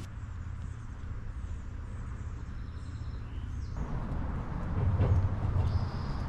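Outdoor walking ambience: a steady low rumble with faint bird chirps above it, growing a little louder about four seconds in.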